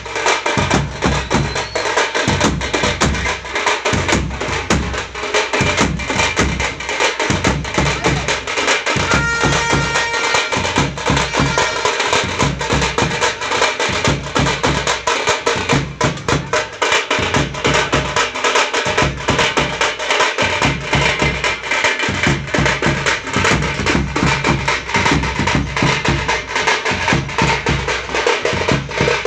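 Loud percussion-led dance music: drums play a fast, steady beat with dense sharp strokes. A brief high steady tone sounds about nine seconds in.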